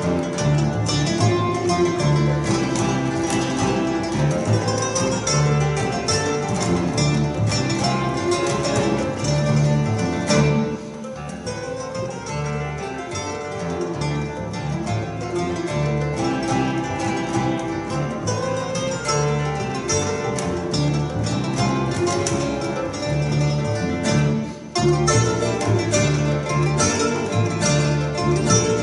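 Mandolin, acoustic guitar and double bass playing a lively tune together, fast plucked notes throughout. The music drops to a quieter passage about ten seconds in and comes back to full volume near twenty-five seconds.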